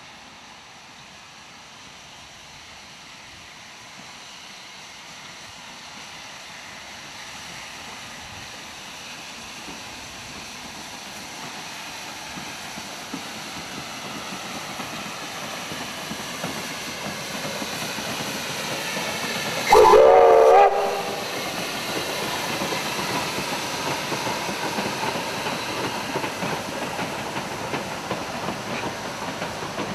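Victorian Railways K-class 2-8-0 steam locomotive K160 hauling a passenger train, growing steadily louder as it approaches and crosses a timber trestle bridge. About two-thirds of the way through it gives one short blast on its steam whistle, a wavering chord about a second long. After that the carriages roll over the bridge.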